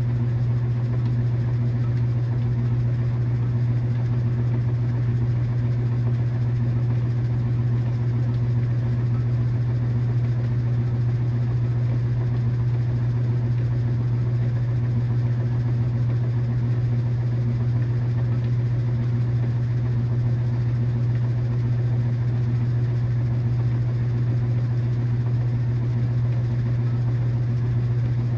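KitchenAid washing machine running with a steady, unchanging low hum.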